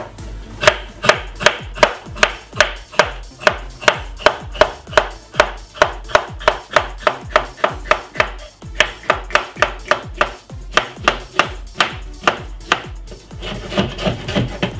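Kitchen knife slicing a deseeded cucumber on a wooden chopping board, each cut ending in a sharp knock of the blade on the board, about three cuts a second. The cutting breaks off briefly about eight seconds in and stops shortly before the end.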